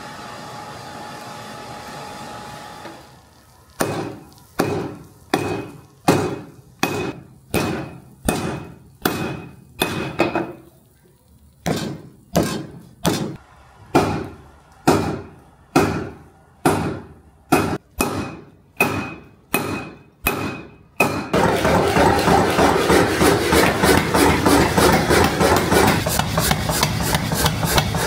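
Blacksmith's hammer striking steel on an anvil, evenly spaced blows about 0.7 s apart, each ringing briefly, with one short pause partway through. Near the end a loud, steady rasping noise starts, as of grinding or filing.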